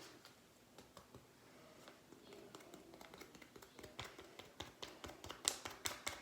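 Slime being worked and spread by hand, giving small sticky clicks and pops, sparse at first and coming faster and louder from about four seconds in.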